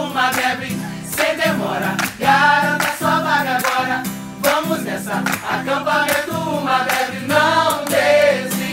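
Background music: a Christian worship song with singing and a steady beat.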